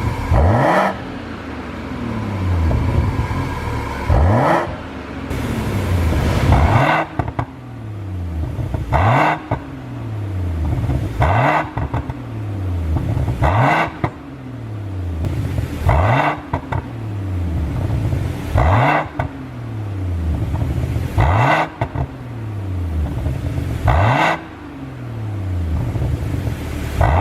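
BMW G30 540i's turbocharged inline-six being blipped over and over while stationary, about ten times. Each quick rev is followed by a burst of exhaust pops and crackles as the revs fall, the overrun crackle of a pop-and-bang ECU tune.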